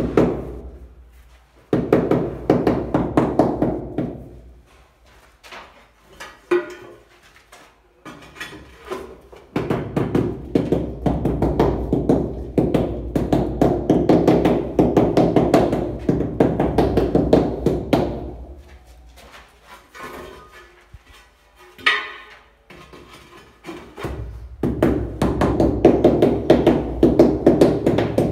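A white rubber mallet tapping stone-look ceramic wall tiles to bed them into tile adhesive. The taps come in quick runs lasting several seconds, with short pauses between runs, and there is one sharper, brighter knock about three quarters of the way through.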